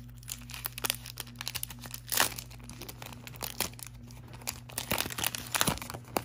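Clear plastic sleeve crinkling and crackling as hands pull it open and unwrap it, in irregular bursts with the loudest about two seconds in.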